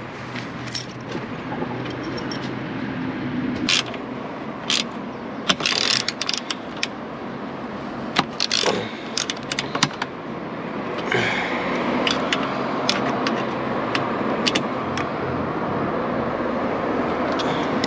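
Scattered sharp metallic clicks and clinks of hand tools working the exhaust mounting bolts as an aftermarket silencer is tightened onto a motorcycle. Under them runs a steady rushing noise that swells from about eleven seconds in.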